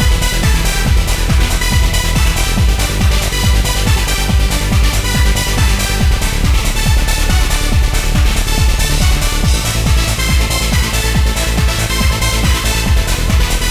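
Instrumental trance music: a steady, driving kick-drum beat under sustained synth lines, with no vocals.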